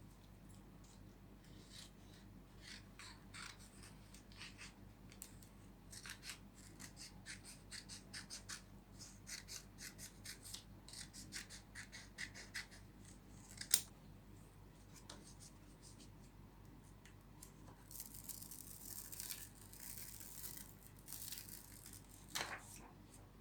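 Faint handwork sounds: a series of short, quick scrapes and clicks, one sharp click about fourteen seconds in, then a few seconds of soft rustling hiss near the end.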